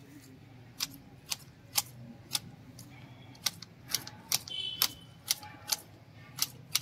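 Orange-handled garden shears snipping a round conifer shrub into shape: a run of sharp blade clicks, roughly two a second, unevenly spaced.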